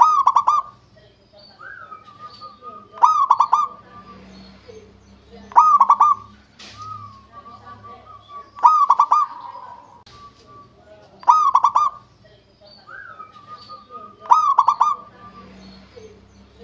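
Zebra dove (perkutut) cooing: a short phrase of rapid staccato coos, repeated six times about every three seconds, with fainter drawn-out notes in between.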